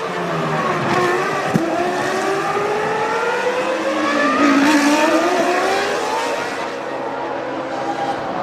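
Formula One cars' V10 engines at racing speed, their pitch falling under braking and climbing again through the gears, with one sharp click about a second and a half in.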